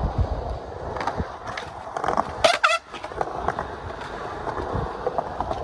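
Skateboard wheels rolling on smooth concrete, a steady rumble with a few sharp knocks from the board, the loudest a little over two seconds in.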